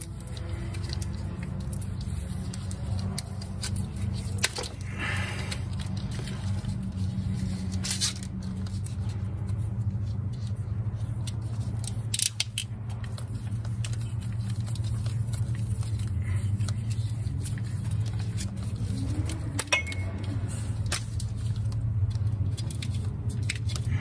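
Hands wrapping cloth tape around the taped ends of a car engine wiring harness, with tape pulling off the roll and short clicks of wires and a terminal being handled. A steady low hum sounds throughout, louder than the handling noises.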